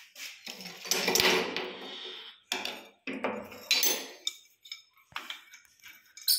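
Metal clinks and scrapes from a chrome angle valve being handled and turned on its wall fitting. The first four seconds hold a few longer scraping bursts; after that come several short sharp clicks as pliers take hold of the valve near the end.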